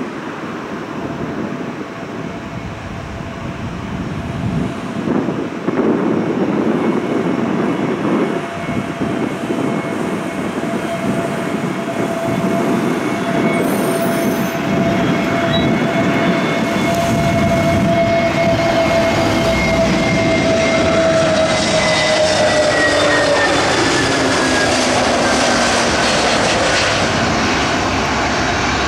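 Airbus A321neo with CFM LEAP-1A turbofans on landing approach: a steady jet engine whine over a broad rush, growing louder as the airliner closes in. Its two whining tones drop in pitch about 21 seconds in as it passes.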